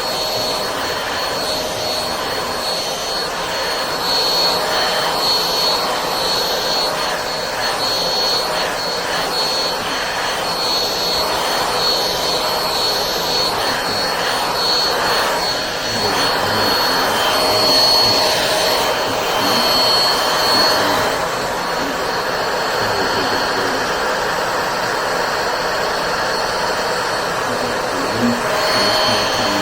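Cordless stick vacuum cleaner running steadily: a rushing hiss with a high whine that fades in and out, strongest a little past the middle.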